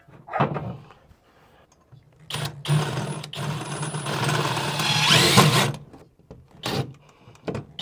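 Power drill running steadily for about three and a half seconds, louder toward the end, with a short knock before it and a few knocks and clicks after it stops.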